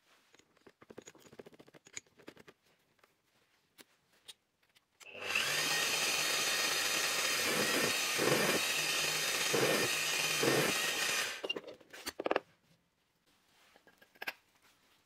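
Bosch bench drill press switched on about five seconds in, running steadily for about six seconds as its bit bores into a wooden block, with three heavier swells of cutting noise as the bit bites in, then cut off. Before it come faint clicks and rustling of gloved hands setting up the bit and workpiece.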